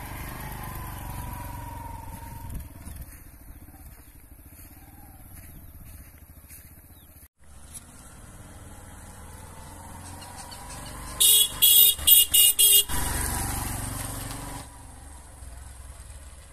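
Bajaj Platina 110 motorcycle's single-cylinder engine running as it rides off, followed by a quick series of about five short horn beeps a little past the middle.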